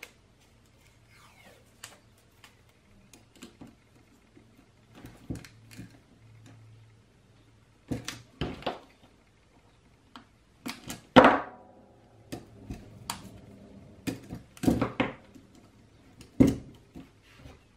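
Electrical tape pulled off the roll in several short rasps and strips pressed onto a circuit board, the loudest rasp about eleven seconds in, with small clicks and knocks of handling.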